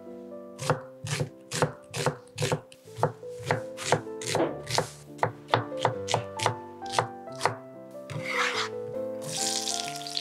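Chef's knife slicing an onion on an end-grain wooden cutting board, a run of chops at about two to three a second, over background music. Near the end comes a hiss as the onion sizzles in hot butter in a frying pan.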